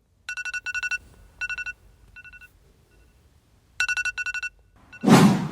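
Electronic ringtone trilling in short bursts of fast warbling beeps, repeating several times with a gap in the middle. Near the end, a short, loud burst of rustling noise.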